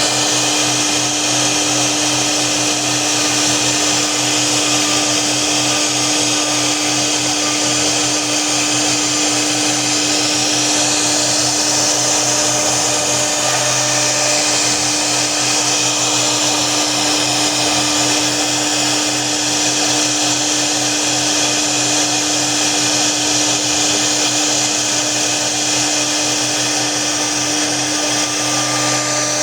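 CNC router spindle running steadily while cutting, a constant tone under a high hissing noise that holds without a break.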